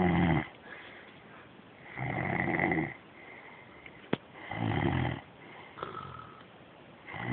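A man snoring in his sleep: loud snores come about every two and a half seconds with quieter stretches between. There is a short sharp click about four seconds in.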